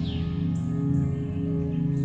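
Ambient background music with sustained low tones.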